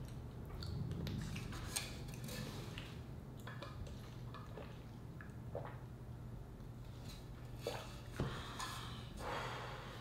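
Close-miked mouth sounds of eating: soft wet clicks of chewing and swallowing. In the second half come sips from an insulated water bottle's spout lid, followed by a couple of breathy rushes.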